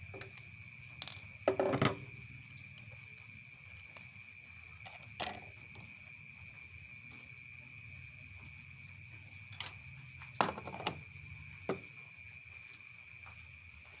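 Hard plastic clicking and clacking as the door-switch cover and trim pieces of a washing machine's control panel are pulled off and set down by hand: a loud rattling cluster about one and a half seconds in, single clicks around five and ten seconds, and another cluster just after ten seconds. A steady high tone runs underneath.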